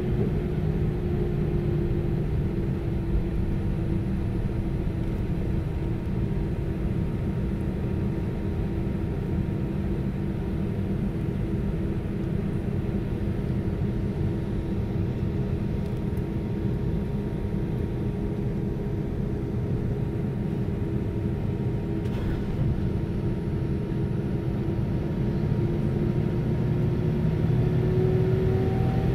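Airbus A319-132's IAE V2500 turbofan engines at taxi power, heard inside the cabin: a steady rumble with a low engine whine. The engine note rises near the end as thrust is added.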